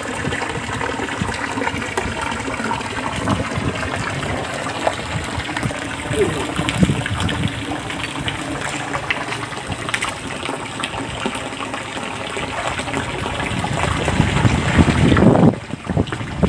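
Steady rush of running water in a shallow concrete channel. Near the end the sound breaks off and gives way to louder, gusty rumbling noise.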